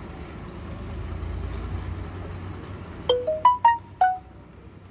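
A short chime of five quick notes, rising then falling, about three seconds in, over a steady low rumble.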